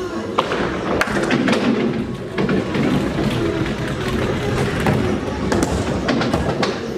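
Mini-bowling alley din: balls rolling along the lanes with a low rumble, and pins being knocked in a series of sharp clattering knocks.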